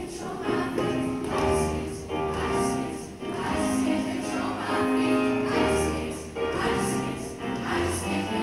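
A seventh-grade show choir of mixed boys' and girls' voices singing held chords with instrumental accompaniment and a steady beat.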